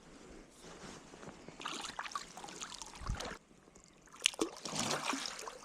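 Water splashing in a stream, in two spells of a second or two each with sharp little slaps, over the steady trickle of running water.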